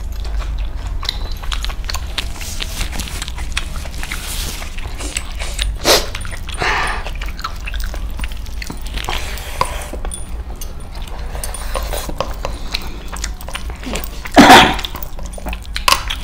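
Close-miked chewing and wet lip-smacking, with many small mouth clicks over a steady low hum. A brief louder mouth noise comes about six seconds in, and the loudest, about half a second long, comes near fourteen and a half seconds.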